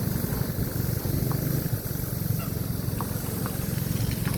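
Steady low rumble of a vehicle's engine and road and wind noise while riding along a road, with a few faint short chirps above it.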